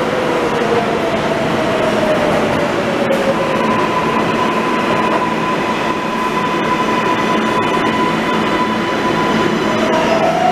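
New York City subway trains at a station platform: a steady rumble with electric motor whine. The whine falls in pitch over the first few seconds, gives way to a steady high hum, and a new whine rises near the end.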